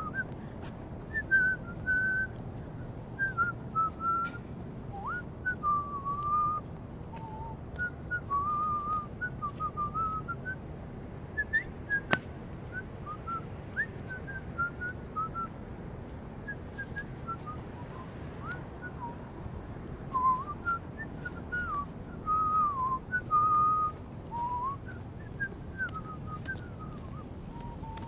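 A person whistling a wandering tune in short, gliding phrases, over a low steady rumble. One sharp click about twelve seconds in.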